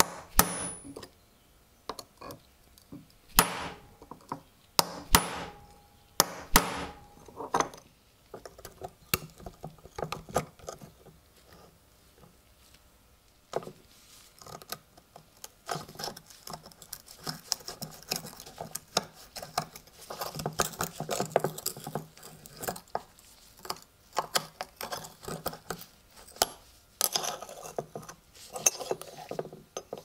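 Hammer blows on a steel punch set in the pivot of a rusty switchblade lying on an anvil: about five sharp metallic strikes in the first eight seconds. After that comes a run of small metal clicks, clinks and scraping as the rusted blade and handle are worked apart by hand.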